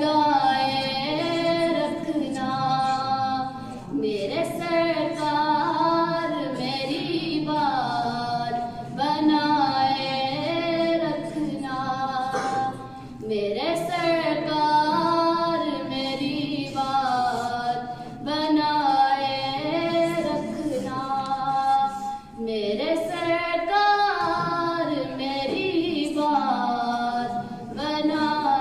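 Unaccompanied naat recitation: a single high, young voice singing long, held melodic phrases, with a short breath every few seconds between phrases.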